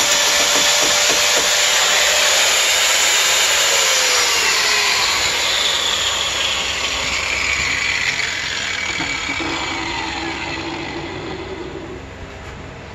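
Angle grinder fitted with an Arbortech turbo plane cutting into rough timber spinning on a wood lathe: a loud, harsh grinding. About five seconds in it comes off the wood and its whine falls in pitch as it winds down, the noise fading steadily.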